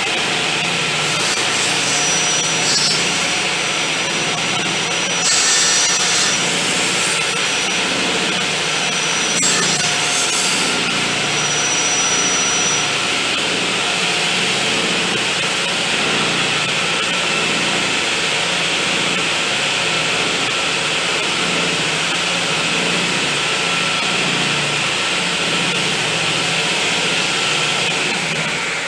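Circular saw mounted under a saw table, running steadily with its blade spinning. Two short stretches of brighter hiss come about five and ten seconds in, where the blade cuts wood.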